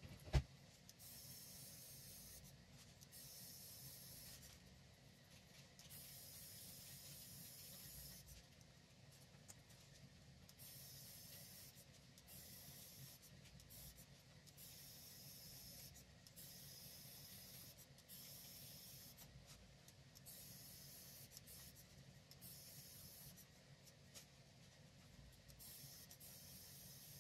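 RP800A 3D pen drawing filament onto a paper template, heard as faint hissing in stretches of one to three seconds with short breaks. A single sharp click about a third of a second in is the loudest sound.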